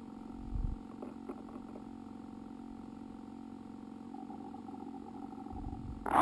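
Steady hum of the electric motors and propellers of a radio-controlled FPV aircraft in flight, heard faintly through its onboard camera, with a brief low thump about half a second in.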